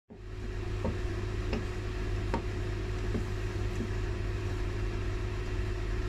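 A steady low hum with a faint steady tone over it, and a handful of light clicks from a small plywood cube puzzle box being handled and turned in the hands.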